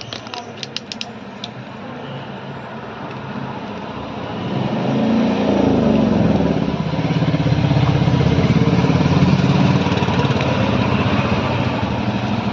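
Electric motor of a Bosch cutter running, swelling to a steady hum about four seconds in, after a few light clicks near the start.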